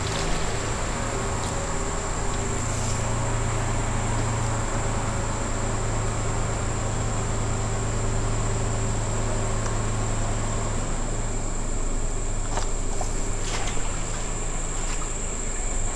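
Night insects trilling steadily at one high pitch over a low steady hum, with a few faint clicks and rustles near the end as the weeds are pushed aside.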